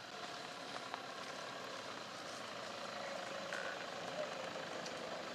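Toyota Hilux pickup truck driving over a dirt field, its engine running steadily.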